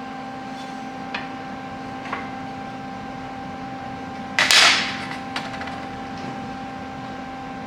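Steady shop hum with a couple of light taps on steel, then one loud sharp clank about four and a half seconds in that dies away within half a second, from handling the steel frame of a welding cart.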